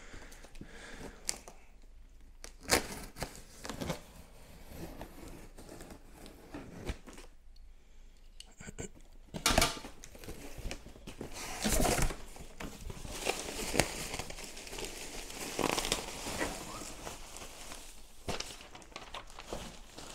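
A cardboard shipping box being cut open along its tape, its flaps pulled back, and plastic packing wrap and air-cushion bags handled, crinkling and rustling, with scattered knocks of cardboard and tool. The first half is sparser, with a few sharp knocks; the rustling grows busier from about halfway through.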